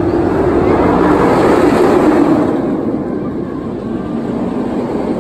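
Bizarro, a B&M floorless steel roller coaster, with its train roaring along the track overhead. The roar swells for about two seconds, then fades as the train moves away.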